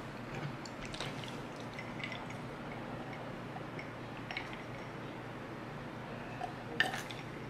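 Faint close-up mouth sounds of someone finishing chewing and then drinking from a glass mug: a few soft wet clicks and swallows over a low steady hiss, with a sharper click near the end.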